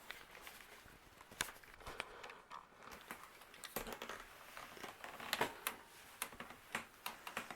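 Harbor Breeze Pulsar ceiling fan starting up on its low speed, running faintly, with scattered light clicks and rustles at irregular intervals.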